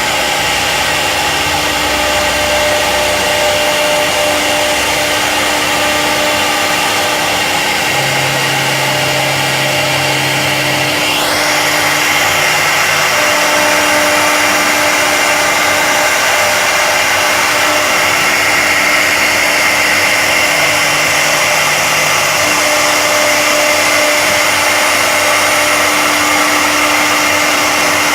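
CNC wood router running: a loud, steady hiss with low hums that switch on and off every few seconds, and a sharply rising whine about eleven seconds in.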